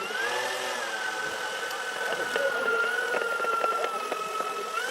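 Electric motors and propellers of an RC model Convair B-36 bomber whining steadily at high speed. The pitch sags a little and then rises again near the end as the throttle opens.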